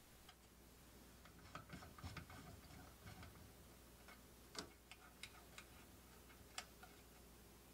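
Faint, scattered small metallic clicks and ticks as the combustion blower motor's mounting nuts are turned off their studs by hand and handled.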